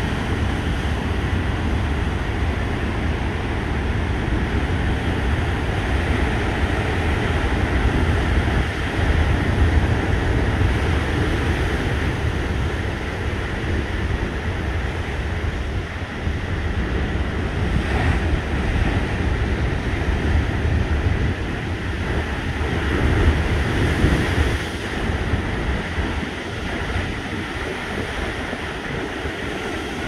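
Heavy surf on a sea churned up ahead of a typhoon, waves breaking and washing in continuously and swelling louder now and then. Strong wind buffets the microphone as a deep rumble underneath.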